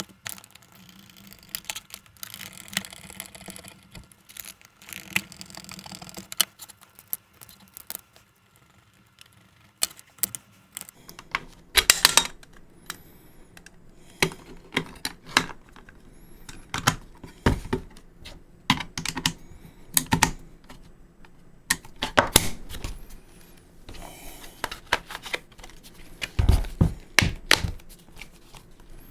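A plastic handheld multimeter (Fluke 15B+) being put back together by hand: irregular clicks, taps and knocks of the plastic case parts and screws. The clicking gets busier about a third of the way in.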